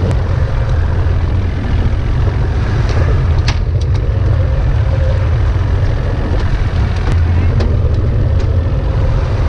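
Fishing boat's motor running steadily, with a few sharp knocks about three and a half seconds in and again near seven seconds.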